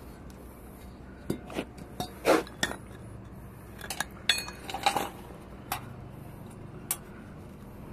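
Metal parts and tools clinking and knocking together while a bus brake servo is worked on by hand: about a dozen separate light clinks and taps at irregular intervals.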